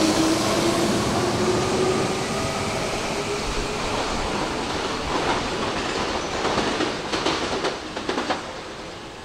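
Hanshin electric train moving along the platform: a motor whine at first, then wheels knocking over rail joints as the sound fades away.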